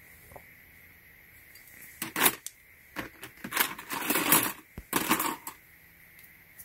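Stainless steel worm-drive hose clamps clinking and rattling against each other and a plastic storage box as they are handled, in several clusters of sharp metallic clicks from about two seconds in until near the end.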